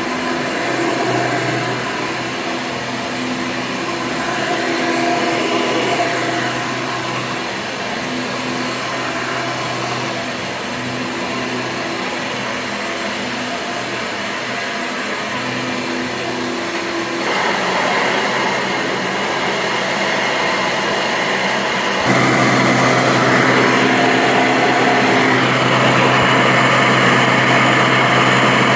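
1996 Hoover Convertible U5063-930 upright vacuum running, its motor fitted with a 20-bladed fan. The motor sound shifts about 17 seconds in and gets louder about 22 seconds in.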